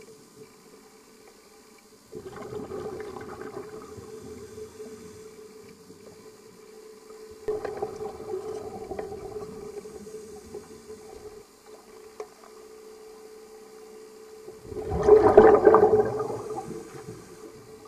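Scuba diver's exhaled breath bubbling out of the regulator underwater, three exhalations several seconds apart with the last the loudest, over a steady hum.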